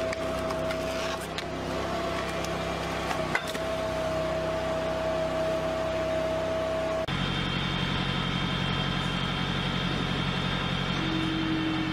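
Engine of a towable hydraulic log splitter running steadily, with a sharp click about three and a half seconds in. About seven seconds in, the sound switches abruptly to a different steady engine note: a tractor driving a wood splitter.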